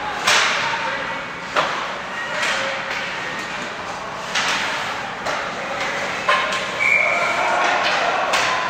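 Ice hockey play echoing in an arena: about five sharp cracks of sticks and puck striking, some against the boards, over a steady murmur of spectators.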